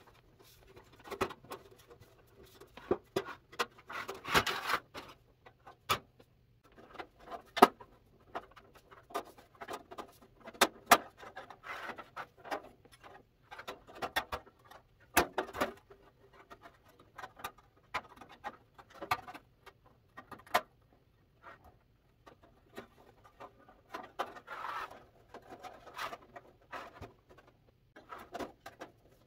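Parts of a T. Cohn tin dollhouse being handled: irregular clicks, taps and light scraping of thin sheet metal as the roof is lifted and eased back into place.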